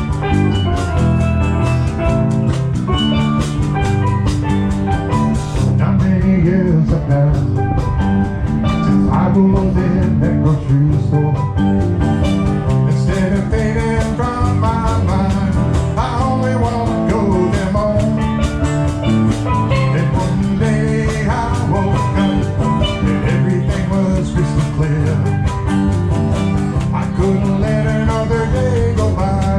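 Live band playing an instrumental passage of a tropical rock song: guitar, bass guitar and drum kit with steel drums, a melodic lead line bending in pitch over a steady beat.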